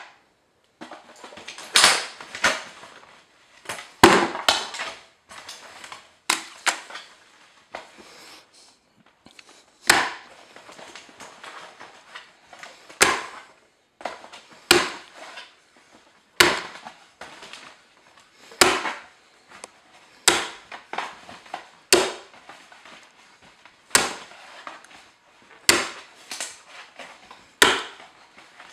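Raw eggs breaking into a plastic bucket one after another: a sharp crack of shell about every two seconds, bunched closer together at the start, with faint wet shell rustling between.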